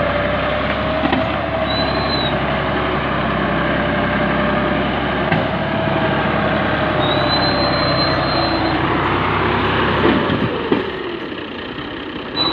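Fiat 480 tractor's three-cylinder diesel engine running hard under heavy load as it drags a fully loaded sugarcane trolley through wet ground, with a brief high squeal twice. About ten seconds in the engine eases off and gets quieter.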